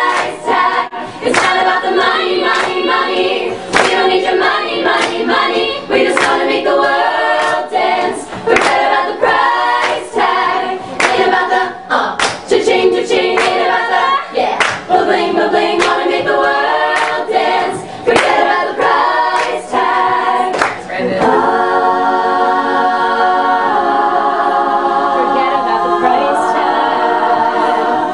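A cappella vocal group singing a pop song in close harmony, with sharp percussive beats throughout. About 21 seconds in, the voices settle into long held chords.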